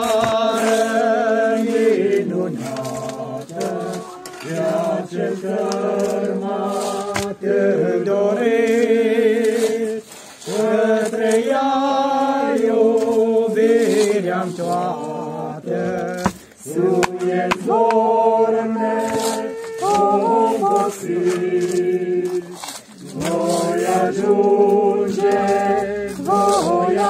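Voices singing a slow Romanian funeral hymn without instruments, in long held notes with short breaks between the lines.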